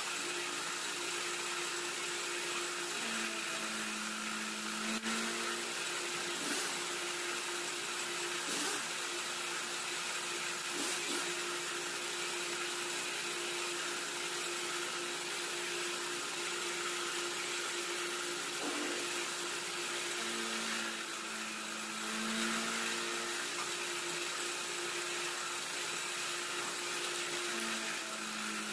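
Vertical cylinder-boring machine running, its boring bar cutting the bore of a motorcycle cylinder block. A steady motor hum with a lower tone that comes and goes, and a few sharp clicks.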